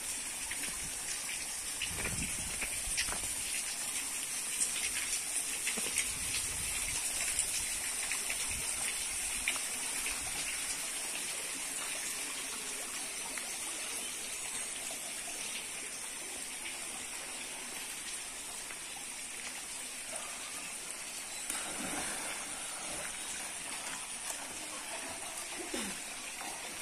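Steady rush of hot spring water running through open stone channels and over wet ground, with occasional light footsteps on gravel.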